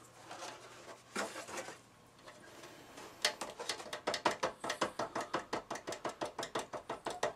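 A lump of headlight mastic dabbed rapidly against the plastic chrome reflector of a Smart Forfour headlight, a quick even run of short tapping strokes, about five a second, starting about three seconds in after a couple of brief scuffs. The dabbing lifts stray sealant off the reflector.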